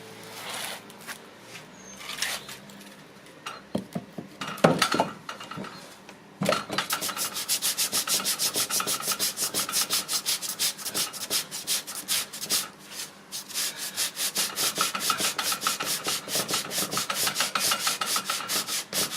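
Sandpaper rubbed by hand over a moisture-swollen MDF door, scattered scrapes and a knock at first, then from about six seconds in a steady run of quick back-and-forth strokes, several a second.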